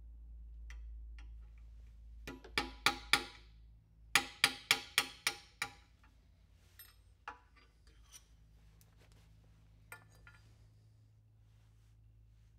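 Hammer blows driving a wooden stick down through a steel dowel plate to form a dowel. There are four quick blows, then a run of six, then a few lighter taps, each blow with a short metallic ring.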